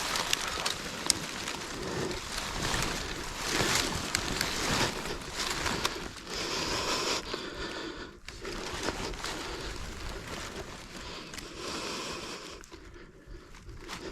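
Irregular rustling and crunching of footsteps through dry leaves and brush, with scattered snaps, easing off near the end.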